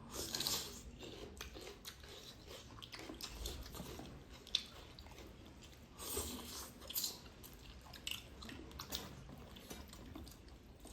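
Quiet close-miked chewing and eating: irregular mouth sounds of food being chewed, with scattered small clicks and a few louder bits about six and seven seconds in.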